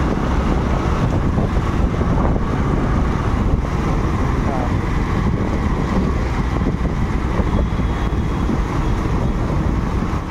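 Wind buffeting the microphone of a moving two-wheeler, mixed with steady road and engine noise from riding in traffic.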